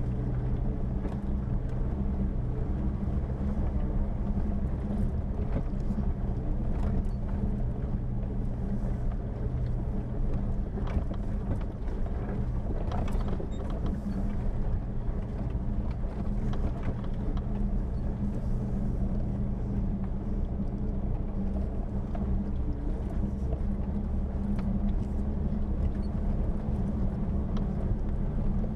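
Jeep Wrangler engine running at a steady low speed while driving a rough dirt track, with a few light knocks along the way.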